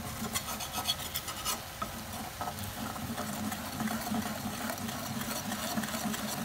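Spatula stirring and scraping scrambled eggs around a stainless steel kadai, with repeated short scrapes against the pan over the sizzle of the eggs frying in oil.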